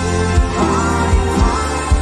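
Live dance-band music played loud through the stage sound system, with a heavy bass beat under sustained chords and a singer's voice.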